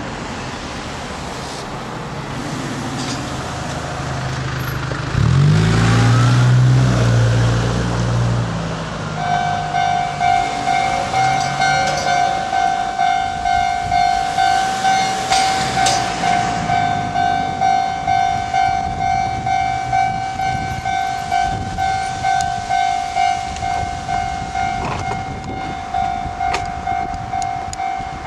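Japanese level-crossing warning bell starting about nine seconds in: a steady electronic ding repeating a little more than once a second, signalling that a train is approaching. Before it, road traffic, with a loud vehicle engine passing about five seconds in.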